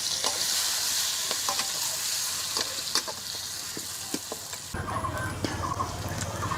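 Yogurt-marinated mutton keema sizzling as it fries in hot oil in a kadai, with the scrape and tap of a spatula stirring it. A low rumble joins in about five seconds in.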